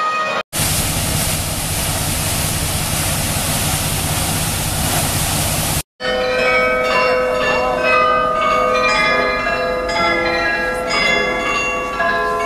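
For the first five seconds or so, a loud, even rushing noise that stops abruptly. Then the bells of the Munich Rathaus-Glockenspiel play a melody, many struck bell notes ringing over one another.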